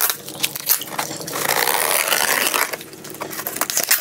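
A plastic-wrapped, taped cardboard parcel being torn open by hand: scraping and crinkling, with a longer ripping noise of more than a second starting about a second and a half in.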